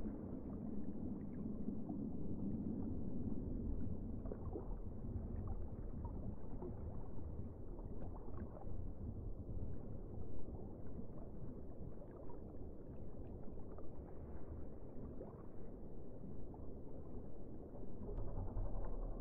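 Muffled underwater ambience: a steady low rumble of moving water with scattered faint clicks.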